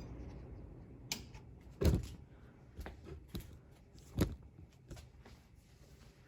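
1986 Casablanca Four Seasons ceiling fan coasting down after being switched off: its air noise fades away over the first couple of seconds. A few irregular sharp clicks and knocks, the loudest about two and about four seconds in.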